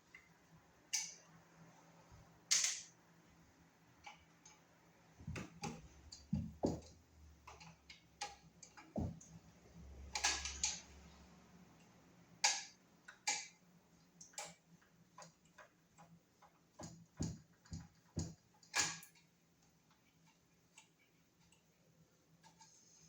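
Irregular clicks, taps and knocks of hands and tools working on an old kitchen wall outlet box and receptacle, with a short scraping rustle about ten seconds in.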